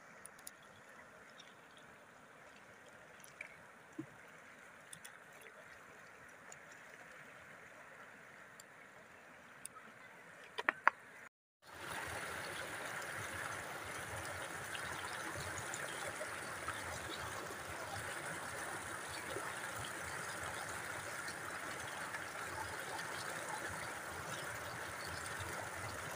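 Water pouring over a low masonry weir on an irrigation channel, heard close up as a steady, loud rush. For the first eleven seconds the water is a fainter, even flow, with a few sharp clicks and splashes that are loudest just before the louder rush begins.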